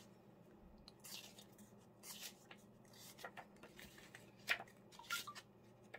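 Pages of a small paper book being turned by hand: faint, brief paper rustles every second or so, the clearest about four and a half seconds in.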